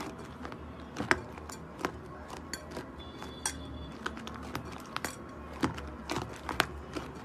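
Slime being handled, giving irregular sharp clicks and small pops, one or two a second, over a steady low hum.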